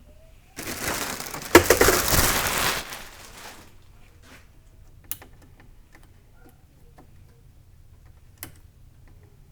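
Rustling and crinkling of unboxing material being handled for a couple of seconds, then scattered light clicks and taps.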